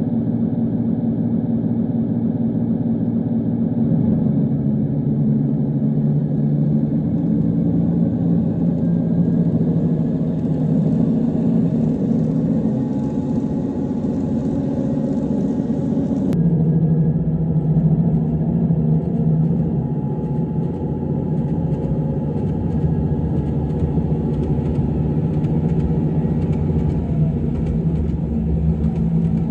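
Recorded Cummins diesel engine sound of a KiHa 85 series railcar, played back through a model-railway sound card, running steadily; its note changes abruptly with a click a little past halfway.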